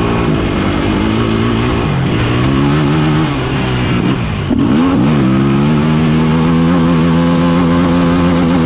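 Engine of an off-road vehicle running under throttle on a gravel road, its pitch rising and falling with the throttle. The pitch drops sharply about four and a half seconds in, then climbs back and holds steady.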